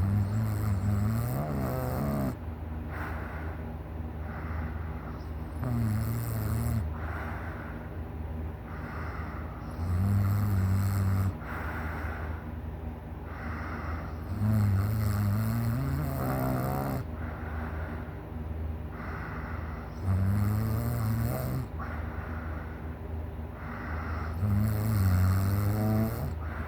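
A sleeping person snoring: six low, pitched snores about every four to five seconds, with softer breaths in between.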